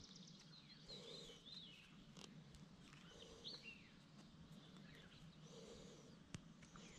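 Faint birds calling, short chirping and sweeping notes a few at a time over a quiet background, with one small sharp click near the end.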